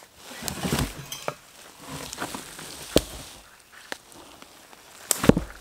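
Rustling and crunching in dry leaf litter and loose soil, with scattered sharp knocks, as someone moves about on foot. A sharp knock comes about three seconds in, and the loudest thump and rustle comes near the end.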